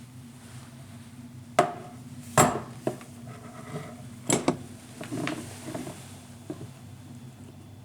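Several sharp clicks and knocks of hard objects being handled, the loudest about one and a half, two and a half and four and a half seconds in, over a steady low hum.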